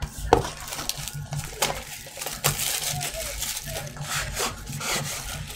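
Clear plastic wrapping crinkling and tearing as it is pulled off a sealed trading-card box, with small clicks and taps from handling the box.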